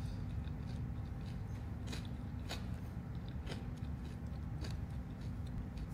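A person chewing a mouthful of oats in milk, with a few faint soft mouth clicks.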